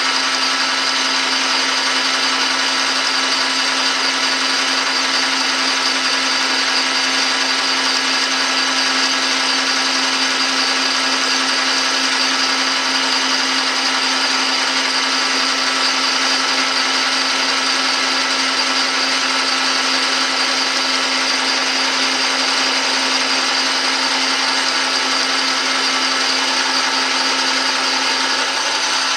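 Metal lathe running with a cross-hatch knurling tool rolling along the oiled, spinning workpiece as it feeds along the bar: a loud, steady machine hum with a constant low tone.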